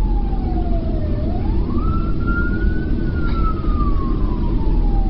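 Police car siren wailing in slow sweeps. A single tone falls, climbs quickly over about a second, then slides slowly down for about three seconds, over the steady low rumble of a moving vehicle.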